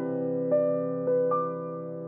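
Background music: a piano-like keyboard playing a few slow notes that ring on and fade.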